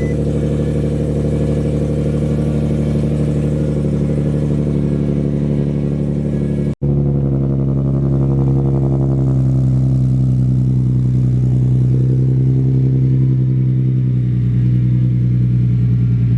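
Infiniti G37's V6 engine idling steadily, running after its newly replaced starter motor got it going.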